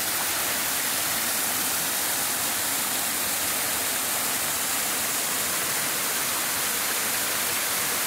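Waterfall pouring: a steady, even rush of falling water.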